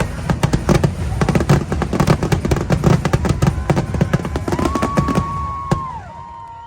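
Fireworks going off in a rapid barrage of bangs and crackles, thinning out about five seconds in with one last loud bang. Toward the end come long, shrill held whistles that drop in pitch as they end.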